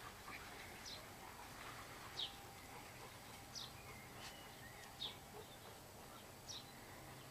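A small animal's short, high-pitched peeps, each sliding down in pitch, repeated about every second and a half over a faint outdoor background.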